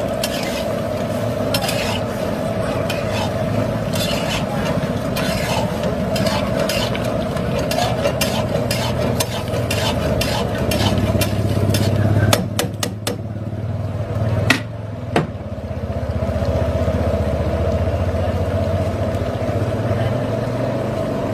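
A spatula stirring and scraping chunks of mutton, tomatoes and whole spices around a karahi while the watery curry boils down, over a steady bubbling sizzle. The stirring clicks stop a little past halfway, after a few sharp knocks, leaving only the steady boiling.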